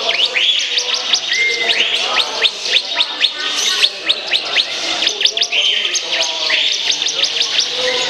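Caged songbirds singing: a rapid run of sharp repeated chirps, about five a second, with several longer rising whistled notes over it.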